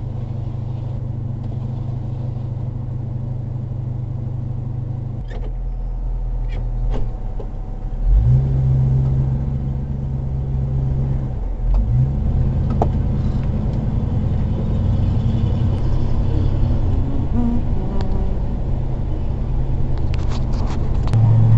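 Class A motorhome's engine and road noise heard inside the cab while driving: a steady low drone that gets louder about eight seconds in, with a few short clicks and rattles.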